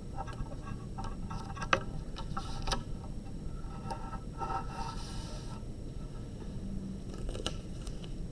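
Paper and tape being pressed and rubbed down onto a board by hand: soft scraping rustles about two and a half and five seconds in, and a few small clicks, the sharpest near the start and another near the end.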